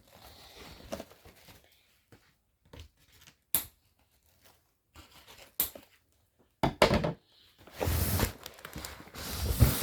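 A plastic showbag being opened: a few separate sharp snaps and rustles, then a burst of crinkling and tearing plastic near the end.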